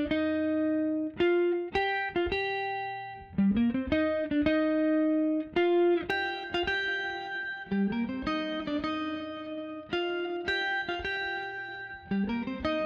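Background music of plucked-string notes playing a light melody, with a short rising run of notes coming back about every four seconds.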